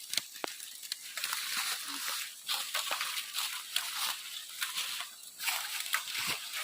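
Irregular rustling and crackling of leaves and twigs, with scattered sharp snaps, once the chainsaw has stopped.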